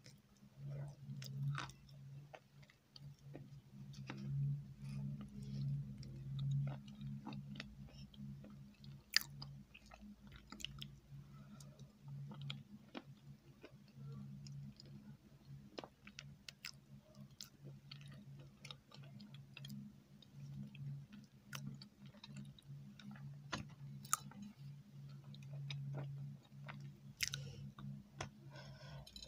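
Close-miked chewing and wet mouth sounds of someone eating a soft cream dessert from a spoon, with many small scattered clicks, over a low steady hum. Near the end, a bite into a wafer biscuit.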